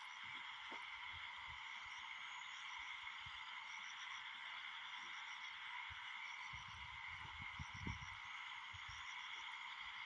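Night-time insect chorus: a faint, steady high drone with short groups of quick chirps repeating above it, and a few soft low knocks a little past the middle.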